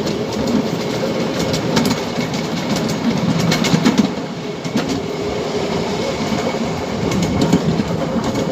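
Ride-on miniature railway train running along its track, heard from aboard: a steady rumble with clusters of clicks as the wheels pass over rail joints.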